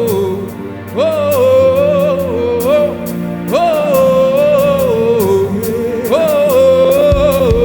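A solo voice sings long, wordless gospel vowel notes, each sliding up and then held. Three such phrases are heard, over steady sustained accompaniment chords.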